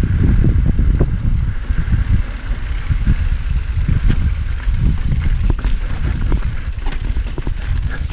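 Mountain bike rolling down a rocky dirt trail: a steady low rumble of wind and tyre noise, with frequent clicks and knocks as the bike rattles over rocks.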